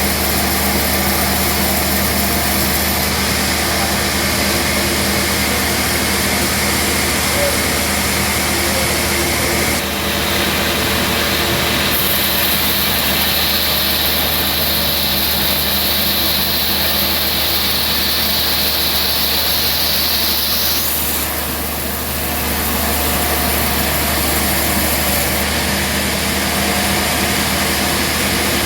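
Band sawmill machinery running steadily, with a constant low hum under a high hiss. The hiss changes about ten seconds in and again about twenty-one seconds in.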